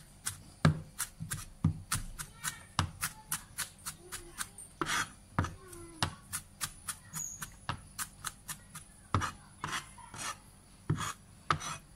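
A wide kitchen knife chopping shallots and garlic fine on a plastic cutting board: a fast, uneven run of knocks, about three a second, as the blade rocks and strikes the board.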